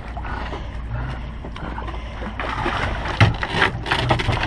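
Water splashing and sloshing at a boat's swim platform as a swimming dog paddles up and scrambles aboard, loudest about three seconds in with a couple of knocks against the platform.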